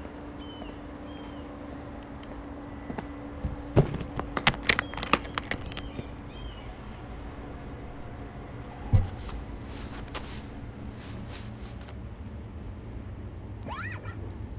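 Outdoor city ambience with a steady low hum and birds chirping, broken by an irregular run of sharp clicks and knocks about four to six seconds in and a single thump near nine seconds, from a guitar case being handled and opened.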